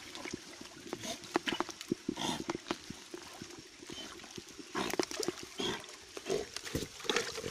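German shepherd swimming through a fast, muddy stream: water splashing and sloshing around it, with short breathy sounds from the dog now and then.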